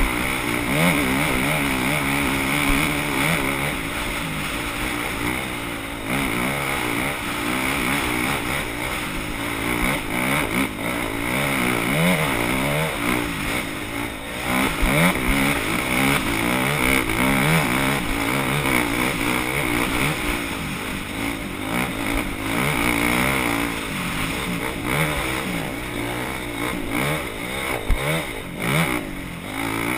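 Engines of off-road racing vehicles on a scramble course, revving up and falling back again and again, with more than one engine heard at a time.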